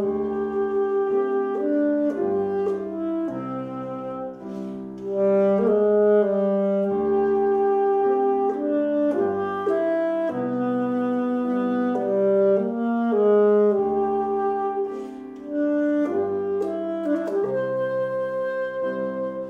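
Alto saxophone playing a classical melody of held notes, accompanied by a C. Bechstein grand piano.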